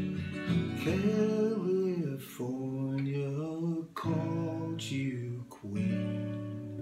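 A man singing a melody over strummed chords on a steel-string acoustic guitar; his voice stops about five and a half seconds in and a fresh chord rings on alone to the end.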